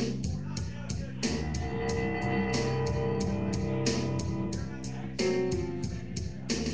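Music with a steady drum beat, about three strikes a second, and sustained guitar notes.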